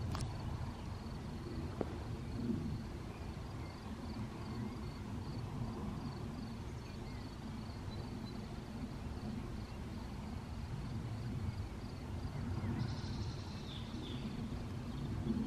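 Wind rumbling on the microphone in open country, with faint bird calls over it: a thin high chirp repeating a few times a second, and a brief brighter call near the end.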